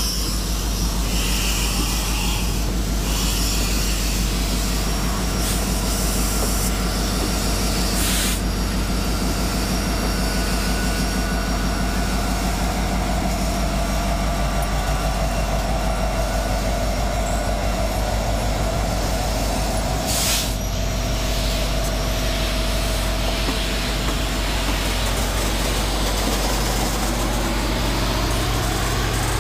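Union Pacific Big Boy 4014, a 4-8-8-4 articulated steam locomotive, working its train up the Wasatch grade: a loud, steady rush of exhaust and rolling train. A faint whining tone wavers in pitch through the middle stretch.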